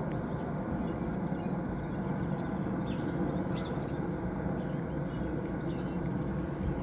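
Backpacking stove burner running under a pot with a steady rushing noise, with a few faint light clicks from a utensil stirring in the pot about halfway through.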